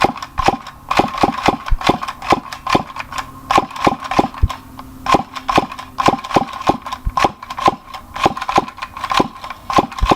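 Plastic mechanism of a battery-less Zero Blaster toy gun, worked by hand into a rapid, uneven run of sharp clicks and rattles, about four a second. This is the 'nice dubstep sound' the toy makes without power.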